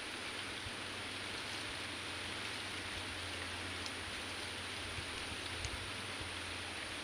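Steady, faint outdoor background hiss with no distinct event, only a faint tick or two partway through.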